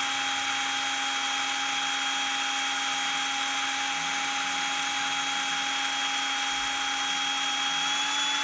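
Ingco cordless drill motor running steadily with a constant electric whine over a hiss, its pitch rising slightly near the end as the speed is stepped up.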